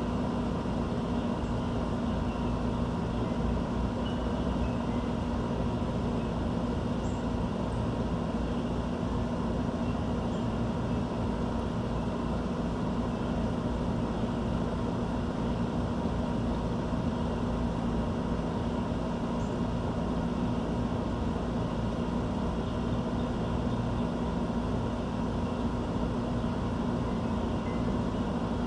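Steady mechanical rumble with a constant low hum, unchanging throughout, with a few faint short bird chirps over it.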